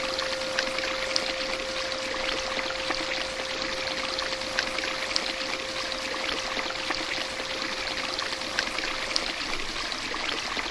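Running water, a steady splashing rush with fine crackles, under a thin steady tone that fades out near the end.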